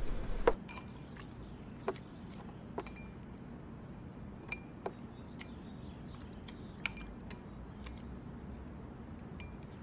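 Wooden chopsticks clinking and tapping against ceramic bowls while noodles are eaten: about nine light, short clinks spread irregularly over the stretch, some with a brief ring.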